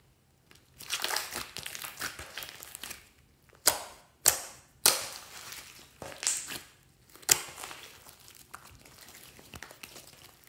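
Glossy pink and gold slime squeezed and stretched by hand. First comes a run of wet crackling squelches, then four loud, sharp pops spread through the middle, and softer crackly squishing near the end.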